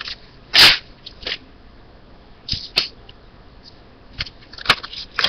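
A sheet of paper being picked up and handled, with short scattered rustles and clicks, the loudest about half a second in.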